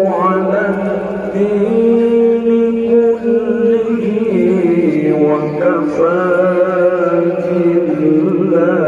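A man reciting the Quran in the melodic tilawah style into a microphone, drawing out long, ornamented notes with a wavering pitch that shifts from note to note.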